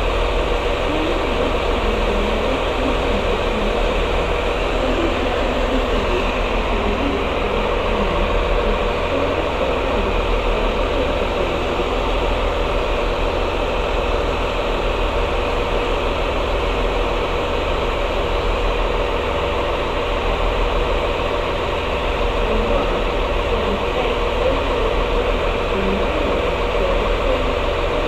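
Diesel train engine idling steadily, a constant low throb with a steady mid-pitched hum over it.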